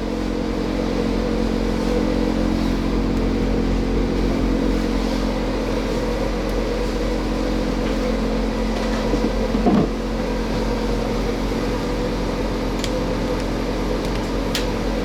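Steady mechanical hum of running equipment, an even drone with several constant tones. It carries a brief sliding sound about ten seconds in and a couple of sharp clicks near the end.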